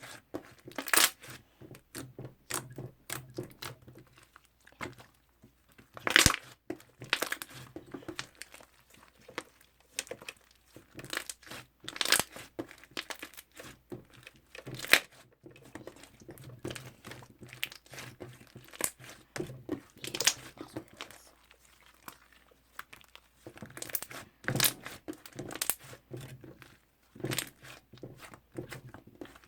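Toffee slime being pressed and pulled by hand, giving irregular sticky clicks, crackles and pops with short pauses between them.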